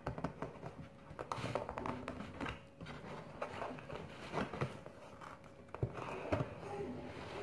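Cardboard cake box being handled and pried open by hand: light rustling and scraping with scattered small clicks and knocks.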